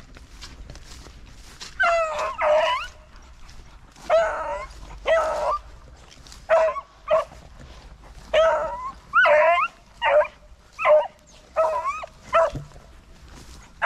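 Beagles baying on a rabbit's scent: about a dozen short, bending yelps, often in pairs, beginning about two seconds in.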